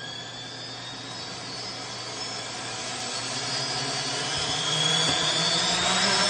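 Quadcopter's four electric motors and propellers spinning up for takeoff: a buzzing whine that rises in pitch and grows steadily louder as the throttle comes up, the drone lifting off the ground near the end.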